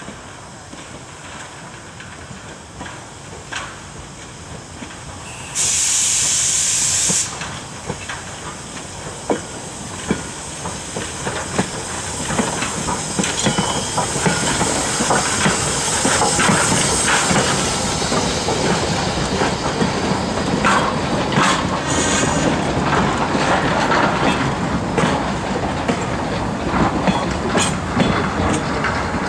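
Replica 1860s American-type (4-4-0) steam locomotive approaching and passing at low speed. About six seconds in, a loud burst of steam hiss lasts about a second and a half. Then the running gear and wheels get louder as the engine and its coach roll past, with sharp clicks over the rail joints.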